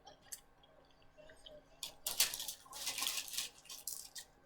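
Close-up eating sounds: a couple of small clicks, then from about two seconds in a run of short, crackly chewing and mouth noises.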